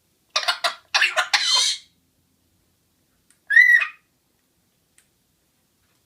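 A quick run of hacking coughs, then about three and a half seconds in one short, high-pitched call.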